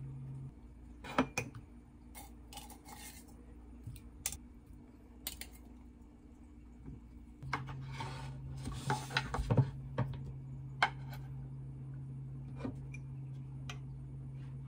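Tableware handled on a kitchen countertop: scattered clinks and knocks as a wooden serving board and small bowls are moved and set down, with a rubbing, scraping stretch and several knocks in the middle. Under it runs a steady low hum that stops about half a second in and comes back about halfway through.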